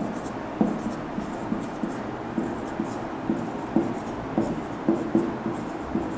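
Marker pen writing on a whiteboard: a run of short, irregular strokes, two or three a second, as letters are drawn.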